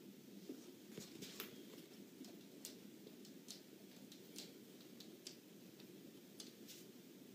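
Near silence with faint, irregular light ticks and clicks, a few a second, of cat paws and claws on a wooden floor and a shaggy rug, over a low steady room hum.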